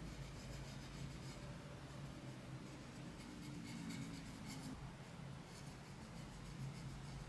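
Cotton swab rubbing over the gilded carved wood of an old picture frame during cleaning, faint scratchy strokes in short spells. A low steady hum lies under it and stops about two-thirds of the way through.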